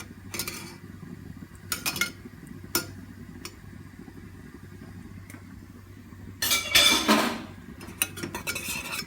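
Teaspoon stirring honey into warm milk in a cup, with a few separate clinks against the cup's side and a louder, longer scrape about six and a half seconds in.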